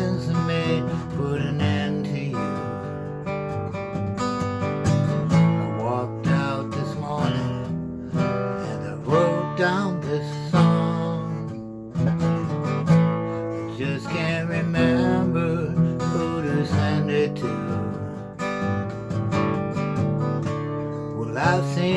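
Acoustic guitar music, strummed, with a singing voice coming in near the end.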